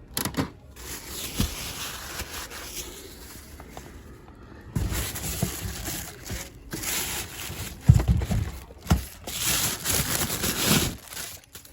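Cardboard cases and packaging being handled: rustling and scraping, louder in the second half, with a few sharp knocks.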